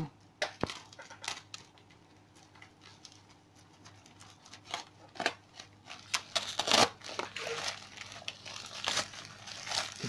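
Plastic postal mailer bag being punctured with a pen and torn open: scattered crinkles and crackles of the plastic, sparse at first and busier in the second half.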